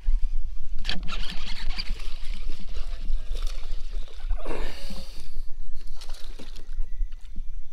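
Hooked fish splashing at the water's surface near the kayak as it is reeled in, with knocks and clicks from the rod, reel and kayak. A low rumble on the microphone runs underneath.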